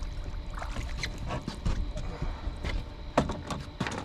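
Scattered sharp knocks and clicks from gear and hull on a fishing boat, at irregular spacing, over a steady low rumble.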